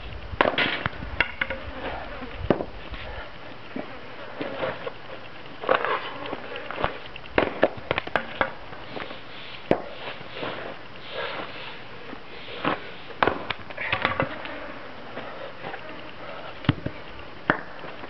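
Axe splitting maple rounds into stove-length firewood on a chopping block: a series of sharp chops and splits at irregular intervals, with the split pieces clattering down.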